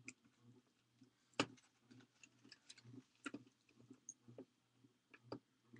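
Faint hand-handling sounds: scattered light clicks and taps as paper craft pieces are pressed down and picked up on a work table, the sharpest about a second and a half in. Underneath, a faint regular tick about twice a second.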